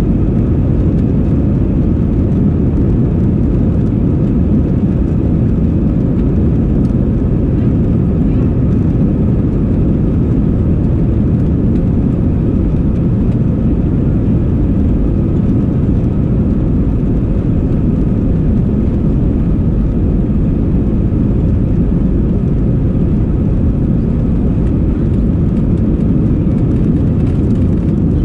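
Airbus A320 takeoff roll heard from inside the cabin: the jet engines at takeoff thrust and the wheels on the runway make a loud, steady deep rumble, with a faint high engine whine above it.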